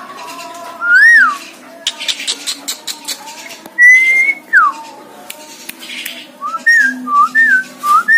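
Javan myna whistling: clear whistled notes, one arched rise-and-fall about a second in, a long held note around the middle that drops steeply, then a quick run of four short up-and-down notes near the end, with scratchy clicking chatter between them.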